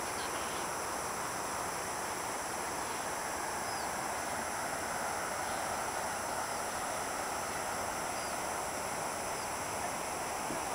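Steady, even outdoor background hiss, with a few faint, short, high chirps scattered through it.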